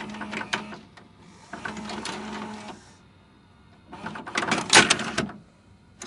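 VHS video cassette player mechanism working: clicking, then a motor whirring with a steady low hum, then a louder clatter of sharp clicks and clacks about four to five seconds in.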